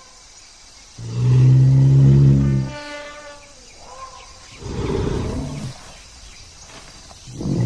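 Dinosaur vocal sound effects for the Iguanodon in Disney's Dinosaur. A deep, horn-like call starts about a second in and lasts nearly two seconds. A brief, higher-pitched cry follows, then a rougher, noisier call around the middle, and another deep call begins near the end.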